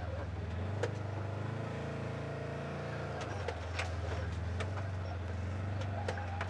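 Off-road vehicle's engine running steadily at low revs, crawling slowly over rocks on feathered throttle, with scattered sharp knocks and clicks of tires and underbody on rock.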